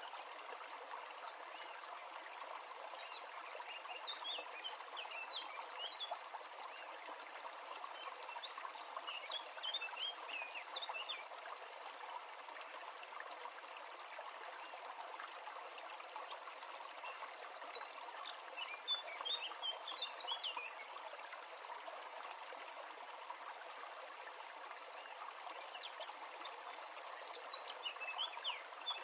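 Small birds chirping in quick high bursts, four times, over a steady outdoor hiss like running water.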